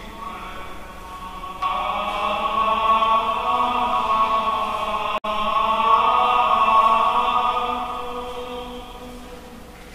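Church music during Mass: long held chords that step up sharply about one and a half seconds in, swell, and fade toward the end, with a split-second dropout in the middle.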